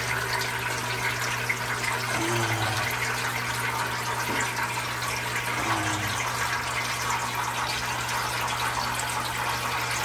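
Water running and splashing from the drip valves of a PVC manifold into plastic fry containers as a pump feeds the rack, with a steady low hum underneath.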